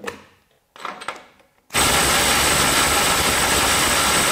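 A few short handling clicks, then a little under two seconds in a Ryobi One+ HP brushless impact driver on a 6 Ah battery starts hammering steadily at full speed on a nut torqued to 500 foot-pounds, working to break it loose.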